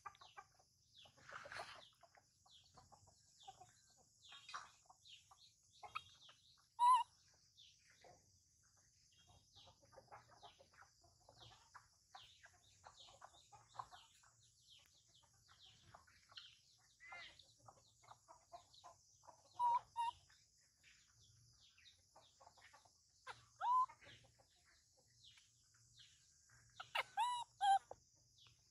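Chickens clucking and small birds chirping over a steady high-pitched insect drone. A few louder, short calls stand out, the last of them as a quick cluster near the end.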